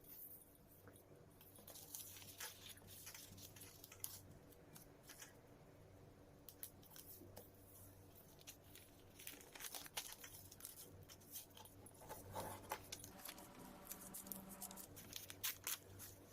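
A sheet of paper being handled and folded by hand: irregular rustling, crinkling and sharp creasing crackles, quiet overall.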